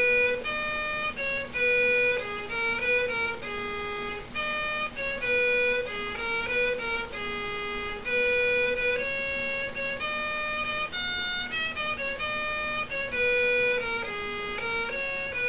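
Instrumental music: a single melody of held, steady-pitched notes moving up and down step by step.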